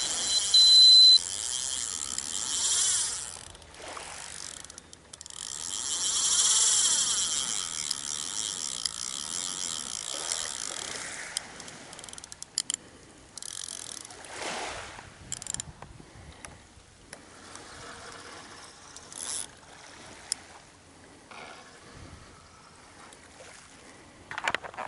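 Spinning reel on a surfcasting rod being wound: a short spell, then a longer, louder one of about five seconds. Fainter scattered handling clicks and rustles follow.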